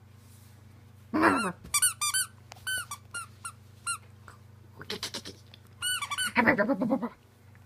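A squeaky dog toy squeaked in quick runs, about a dozen short rising-and-falling squeaks. A longer, lower growl-like sound comes near the end.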